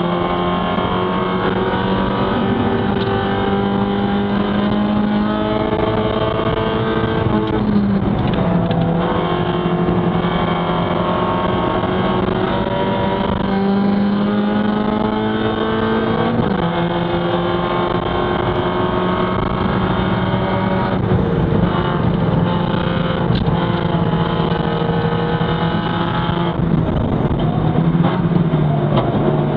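Spec Miata's four-cylinder race engine at full throttle, heard from inside the cockpit. The engine note climbs slowly, drops sharply about eight seconds in and again about sixteen seconds in, then holds fairly steady with brief dips near the end.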